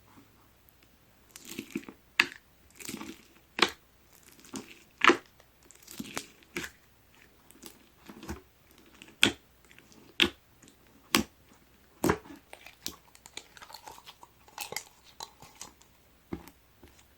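Clear slime mixed with mint-coloured foam beads being squeezed and pressed by hand: crunchy crackling with a dozen or so sharp pops at irregular intervals.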